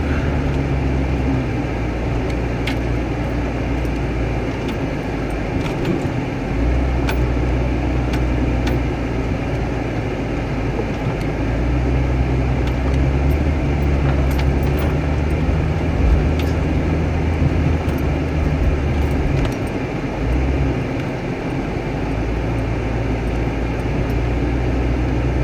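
Old Jeep's engine running as it drives slowly over a muddy, rutted dirt track, heard from inside the cab. The engine note rises and falls with the throttle several times, and short knocks and rattles come from the bumps.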